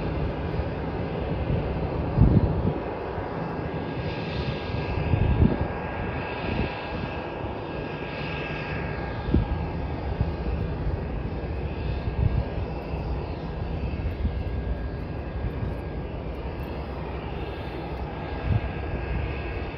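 Airbus A320 jet airliner's engines running at low taxi thrust with a steady rush and a faint whine as the plane turns onto the runway. A few short low thumps stand out, the loudest about two and five seconds in.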